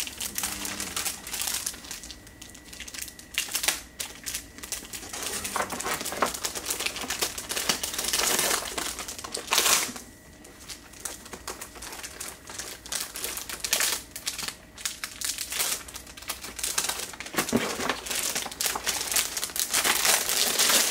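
Plastic and cardboard packaging crinkling and rustling as it is handled, with scattered sharp clicks and knocks; the loudest rustle comes about halfway through.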